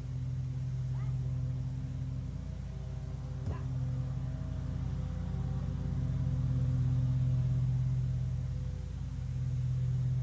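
A steady low engine hum, with one short click about three and a half seconds in.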